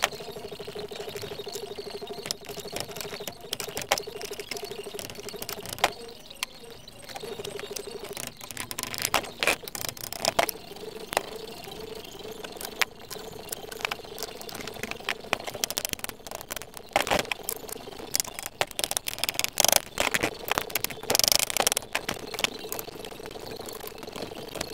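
Irregular metal clicks and clinks of a wrench working the nuts and bolts on iron straps clamped to a wooden cart beam, coming more thickly in the second half. A steady buzzing hum runs underneath, dropping out for a couple of seconds around six seconds in.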